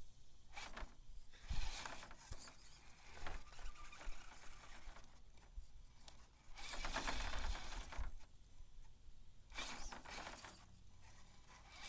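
Axial SCX10 III Base Camp RC rock crawler's brushed motor and gear drivetrain whirring in several short pushes of one to two seconds, with its tires scraping and grinding over rock between quieter pauses.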